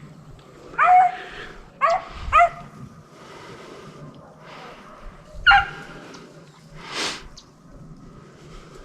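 Hunting dogs on a deer drive barking: four separate barks, each dropping in pitch, three close together and one a few seconds later. A short rushing burst of noise follows near the end.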